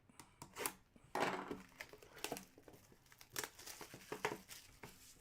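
Crinkling and rustling of plastic as hockey trading cards are handled, in a string of short rustles and crackles.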